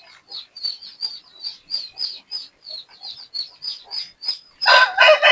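Rapid, high-pitched chirping, about four chirps a second, from poultry or small birds. About four and a half seconds in, a rooster crows loudly over it.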